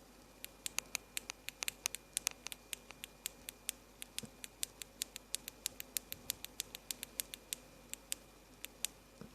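Power switch of a faulty Nitecore MH20 flashlight clicked over and over, about four sharp clicks a second at an uneven pace, with full presses that get no response from the light.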